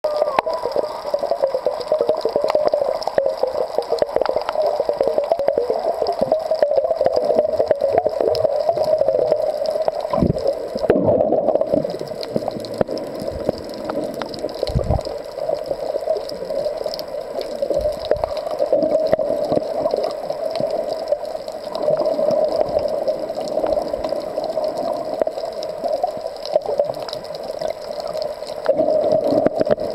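Underwater sound picked up by a submerged waterproof compact camera while snorkeling: a steady muffled water rush with many small clicks and a few low thumps.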